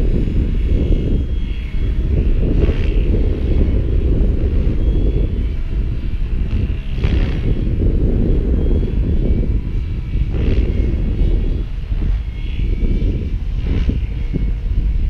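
GAUI X7 electric radio-controlled helicopter flying overhead. Its rotor and motor give a faint whine that drifts in pitch, with brief swishes now and then. A heavy low rumble of wind on the microphone lies under it all.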